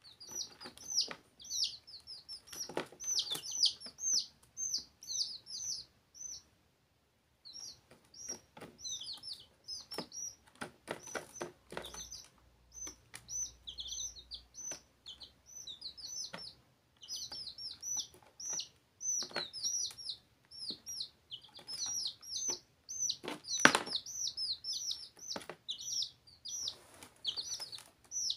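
Baby chicks peeping almost without pause, a stream of high, falling chirps with a short pause about six seconds in. Scattered taps and knocks are mixed in, one louder knock near the three-quarter mark.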